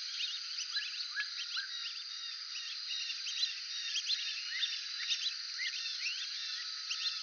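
Brazilian teal calling: many short, rising whistles overlapping one another, over a steady high drone.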